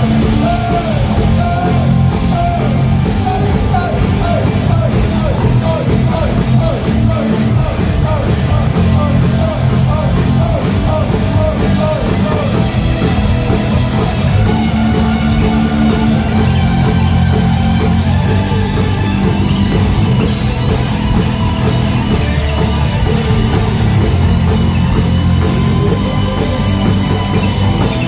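A rock band playing live and loud: electric guitar and a drum kit keeping a steady beat, with singing.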